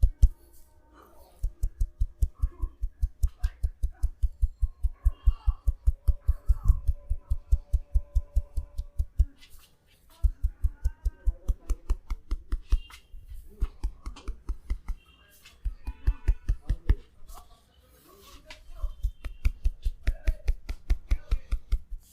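Rapid, rhythmic thumping of a masseur's hands beating on the body in a percussive tapping massage, several strikes a second. It comes in three long runs with short pauses between.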